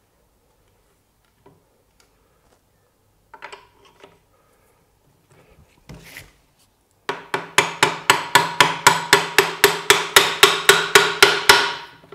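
Rapid, even hammer taps, about four to five a second for some five seconds, driving the tight laygear shaft into a Volvo M40/M41 gearbox casing; each blow rings with a metallic tone. A few lighter knocks come before the run starts.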